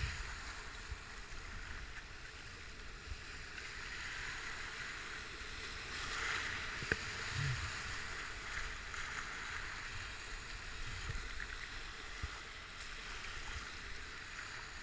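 Rushing whitewater of river rapids around a kayak, a steady hiss of churning water with a low rumble beneath. A single sharp knock about seven seconds in.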